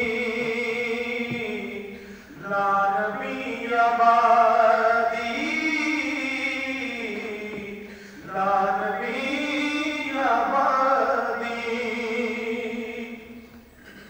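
A solo voice chanting an Islamic devotional recitation in slow, melodic phrases with long held notes. There are three phrases, with short breaks about two and eight seconds in, and the last fades away near the end.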